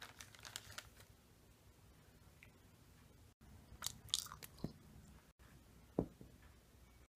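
A crisp cracker crunching as it is bitten into, a cluster of sharp crackly snaps about four seconds in, after a shorter run of crackles at the start. Near the end comes a single sharp tap as a cracker drops onto a tile floor.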